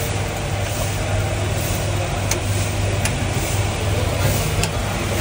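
Steady low engine hum, with two faint clicks a little past two and three seconds in.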